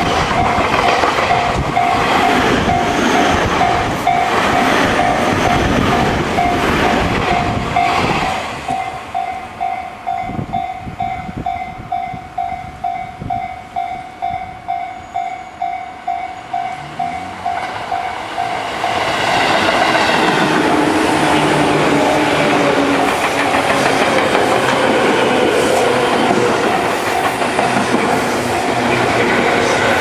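A Tobu 30000 series ten-car train passes close by over a level crossing, wheels clattering, while the crossing bell rings. The train clears about 8 seconds in, and the bell carries on alone at about two strokes a second. About 19 seconds in, a Tobu 9000 series train arrives and passes with its wheels clattering over the rail joints.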